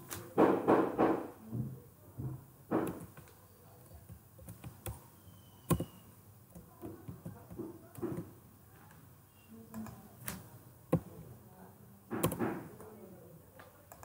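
Scattered single clicks and taps from a computer keyboard and mouse, a second or more apart, while code is edited. Brief muffled talk comes near the start and again near the end.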